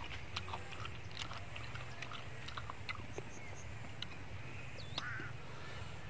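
Light scattered clicks of steamed snail shells and a toothpick as the meat is picked out of each shell, with soft chewing.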